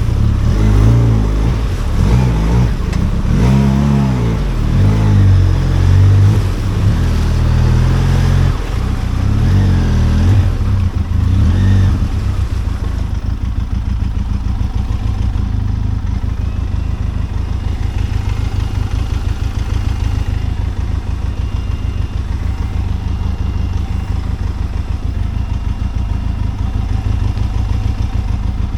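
Benelli TRK 502X motorcycle's 500 cc parallel-twin engine revving up and down for about twelve seconds, then settling into a steady, even run at low revs.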